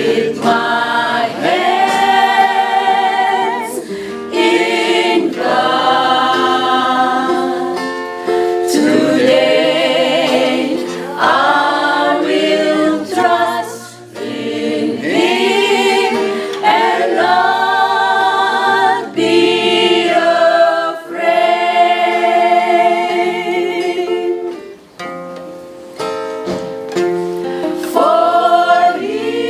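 Small mixed choir of women's and men's voices singing a Christian song together, accompanied by an acoustic guitar, in phrases with short pauses between them.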